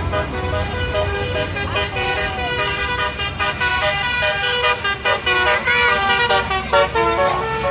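A tour bus's 'telolet basuri' multi-tone musical horn playing a quick melody of short notes that step up and down in pitch, over the low rumble of passing traffic.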